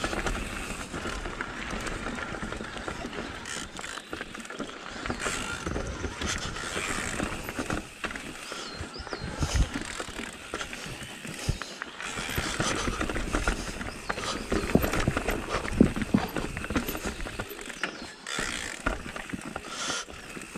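Mondraker Level R electric mountain bike rattling down a rocky forest trail: tyres crunching over rock and dirt, chain and frame clattering, and the freewheel clicking, with sharp knocks as the wheels strike rocks.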